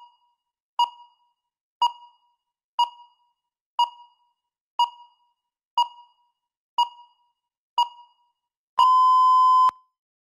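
Countdown timer beeping: a short beep each second, then one longer beep about nine seconds in as the timer reaches zero and speaking time runs out.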